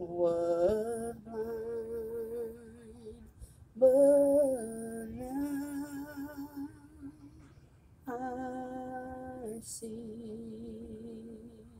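A solo voice singing unaccompanied, wordless gospel-style phrases: three long held notes with strong vibrato, each stepping down in pitch, the second starting loudest.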